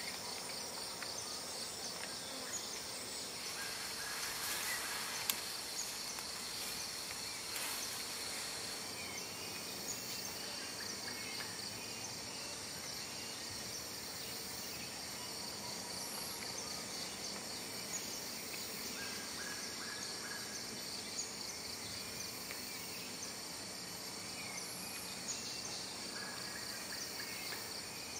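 A dense insect chorus: several steady, rapidly pulsing high-pitched trills sounding together, with a few short chirps. Two louder buzzing swells come in at about four and seven seconds.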